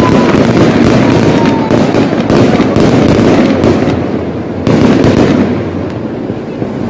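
A fireworks barrage: a dense run of cracks and bangs, with a thin falling whistle in the first second and a half. The barrage thins after about four seconds, with one strong bang near the five-second mark.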